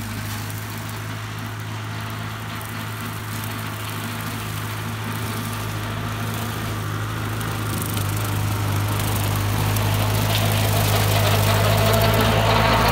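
1948 Ford 8N tractor's four-cylinder flathead engine running steadily under load, with its PTO-driven brush hog cutting tall grass. It grows steadily louder as the tractor comes up and passes close by.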